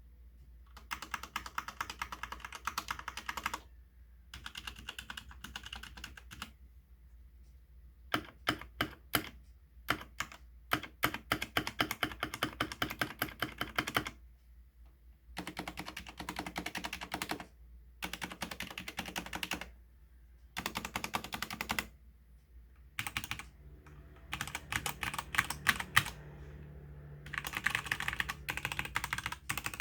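Typing on a stock Redragon Fizz 60% mechanical keyboard: fast runs of key clicks in bursts of a few seconds with short pauses between them, and a few slower single keystrokes about eight seconds in.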